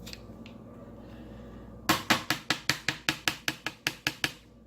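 A quick, even run of small hard taps, about seven a second for roughly two and a half seconds, starting about two seconds in. The watch or its back is being rapped while a stuck screw is worked loose from the back of a Galaxy Gear S2 Classic smartwatch.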